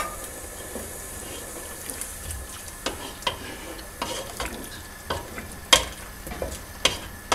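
A wooden spoon stirring a stew of beans, meat and tomato sauce in a granite-coated pot, knocking irregularly against the pot's side and bottom. The freshly added hot water sizzles faintly and steadily underneath.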